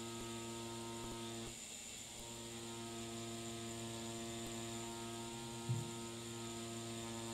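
Tattoo machine running with a steady hum as a seven round liner lines fake skin; it stops for about half a second a little over a second in, then starts again. A short thump comes near the end.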